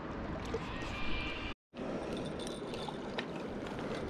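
Steady rushing noise of river water and wind on the microphone, broken by a short dropout to silence about one and a half seconds in, then a few faint clicks as a spinning reel is handled.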